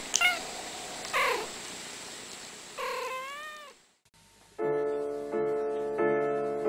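A domestic cat meowing three times, short calls and then a longer meow that bends in pitch. After a brief silence, piano chords begin, struck about every 0.7 seconds.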